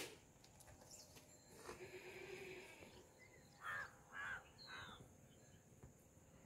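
Faint animal calls: two short harsh calls about half a second apart, followed by a quick high falling chirp.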